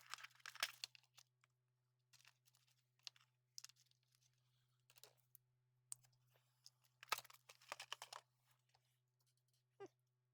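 Faint, scattered small clicks and rustles of hands handling wires and a piece of heat shrink tubing on a small electronics repair, with a short cluster of them about seven seconds in, over a faint steady low hum.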